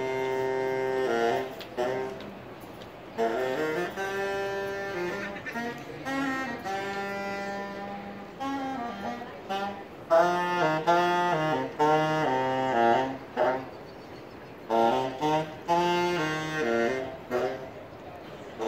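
Music: a solo saxophone playing a melody, one note at a time, in phrases separated by short pauses.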